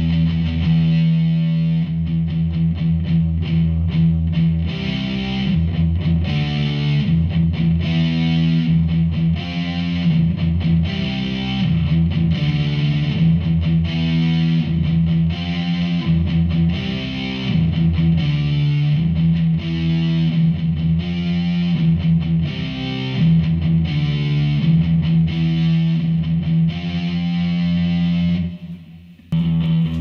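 Electric guitar with overdrive distortion, played through a Behringer V-Amp Pro amp modeler, repeating a rhythmic riff with heavy low notes. The playing breaks off briefly near the end, then starts again.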